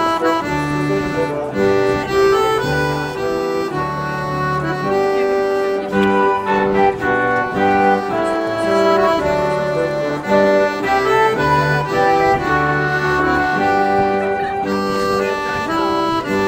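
Accordion playing a tune: held melody notes over a bass accompaniment that moves in regular steps.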